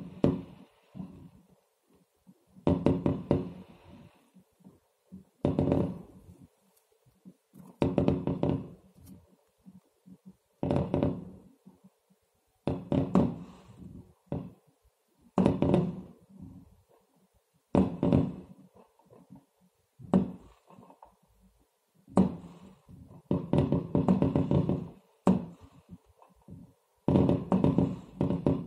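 Fireworks exploding, heard from indoors through window glass: muffled bangs in volleys of several quick reports, each volley about a second long, coming about every two to three seconds.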